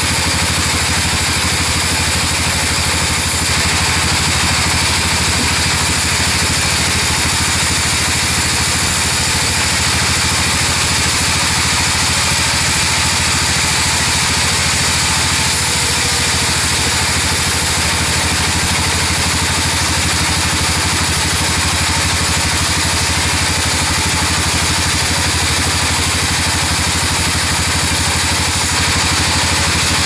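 Horizontal band sawmill running steadily, its blade slicing a board from an albasia (sengon) log over the steady drone of the saw's drive.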